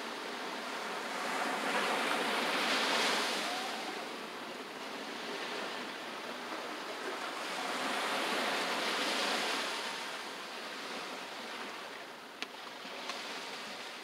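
Ocean surf breaking and washing up the beach, swelling twice and then easing, with a couple of sharp clicks near the end.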